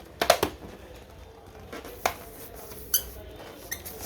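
Small rubber balloons popping: a quick run of three sharp pops near the start, then single pops about two, three and nearly four seconds in.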